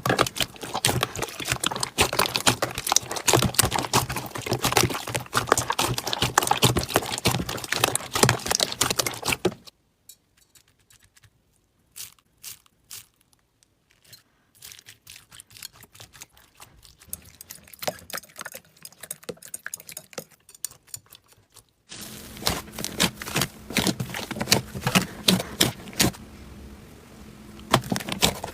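Slime being squeezed and pressed by hand, making dense crackling clicks and pops. The clicking drops to a faint, sparse patter about a third of the way in, then turns loud and dense again about three quarters of the way through.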